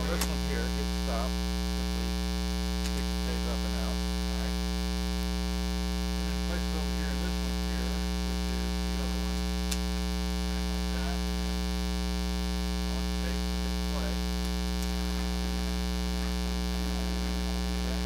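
Steady 60 Hz mains hum with a stack of buzzing overtones: ground-loop noise induced into the recording by running the camera from its AC adapter.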